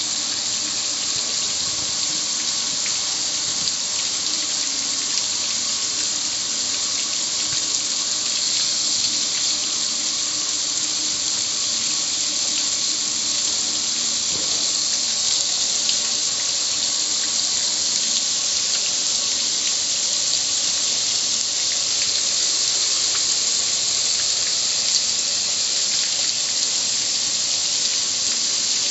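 Garden hose spray nozzle running steadily, water splashing onto a metal gas grill and running off its lid and control panel in a continuous hiss.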